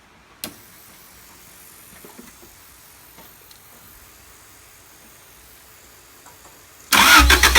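A quiet hiss with one sharp click, then near the end the Honda Civic's D15B2 four-cylinder engine, converted to multi-point fuel injection, starts up suddenly and runs loud with an uneven, pulsing beat. The engine is misfiring, with a very bad idle after the conversion.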